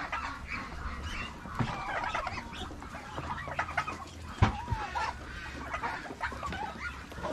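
Mixed farmyard poultry flock of turkeys, ducks and chickens clucking and calling while feeding, many short overlapping calls, with a louder sharp call about four and a half seconds in and another at the very end.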